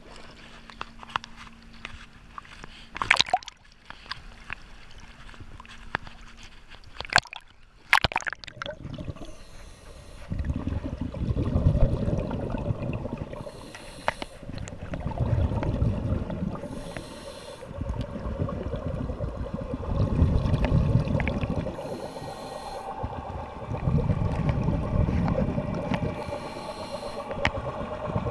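Water sloshing and splashing against the camera at the surface, with a few sharp knocks. Then, underwater, a scuba diver breathes through a regulator in a regular cycle about every four to five seconds: a short hiss on each inhale, then a longer low rumble of exhaled bubbles.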